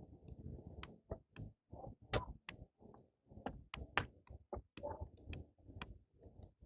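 Footsteps climbing a flight of stairs: faint, irregular knocks and scuffs, two or three a second.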